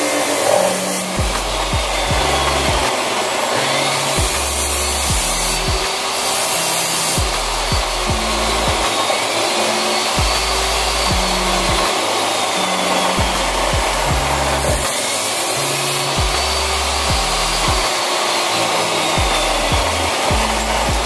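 Background music with a repeating bass line. In the first second or so an abrasive chop saw grinds through a steel pipe.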